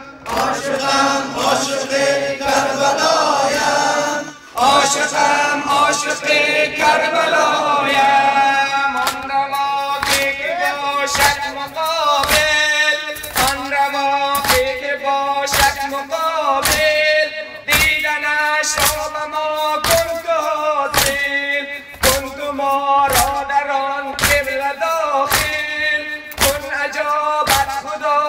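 A man's voice sings a Persian noha, a Muharram mourning lament, into a microphone. From about eight seconds in, a steady beat of sharp slaps keeps time with it: mourners beating their chests (sineh zani) to the lament.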